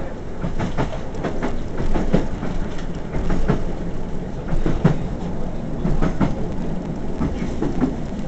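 Inside the carriage of a moving passenger train: a steady rumble of wheels on the rails, with irregular sharp clicks and knocks from the track, several a second.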